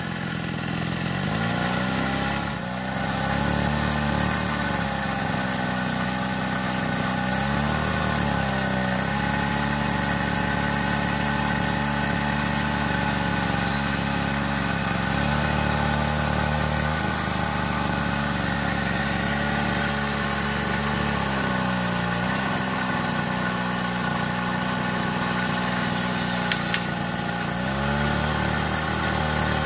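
Hydraulic pump of a homemade 1/8-scale Cat 390F RC excavator running steadily. Its drone dips in pitch and steps back up several times as the boom, arm and bucket are worked while digging.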